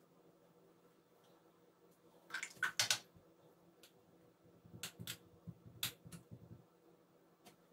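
A few sharp clicks about two and a half seconds in, then a run of light taps and scuffs as a paintbrush picks up and works paint in the wells of a watercolour box palette.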